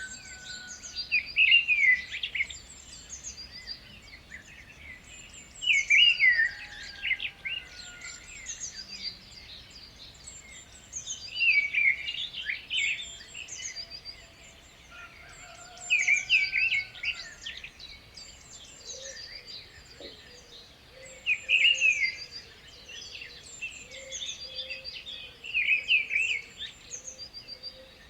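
Wild birds singing at dawn: one loud, rapid song phrase repeats about every five seconds, with softer high chirps and thin whistles from other birds between the phrases.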